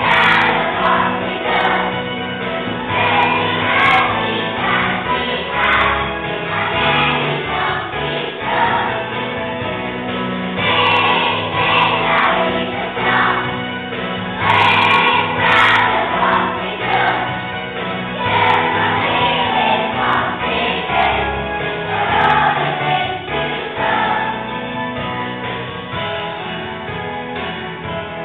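A group of young children singing a song together, with music playing along.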